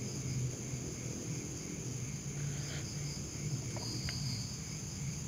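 Faint steady background noise: a low hum and a high-pitched steady whine, with a couple of faint clicks about four seconds in.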